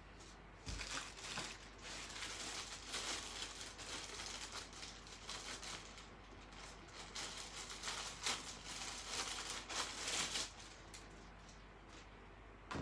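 Plastic packaging crinkling and rustling in irregular bursts as it is handled and unwrapped.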